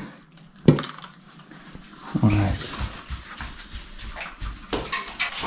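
Pet dog whining briefly about two seconds in, after a sharp knock, with a few small clicks around it.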